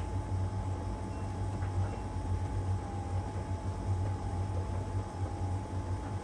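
LG heat pump tumble dryer running mid-drying: a steady low hum from the compressor and drum motor, with a thin steady whine above it and an even rushing noise.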